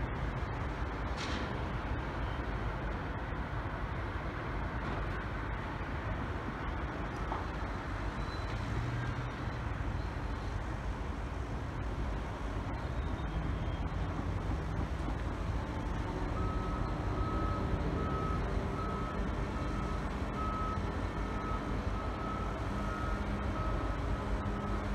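Steady rumble of city traffic, with a vehicle's reversing alarm beeping at an even pace over the last third.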